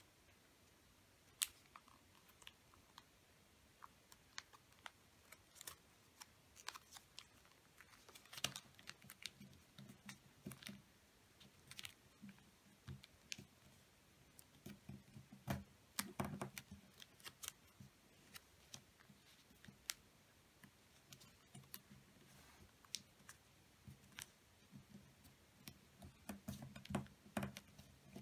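Sheet of origami paper being folded and creased by hand: faint, irregular crinkles, clicks and taps, a few of them sharper, with soft rubbing as fingers press the folds against the tabletop.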